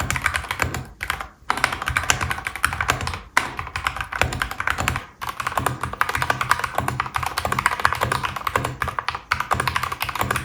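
Fast typing on a Lofree Triple Mode Pilot Edition mechanical keyboard with Gateron G Pro switches: a rapid, continuous run of key clicks with a few brief pauses.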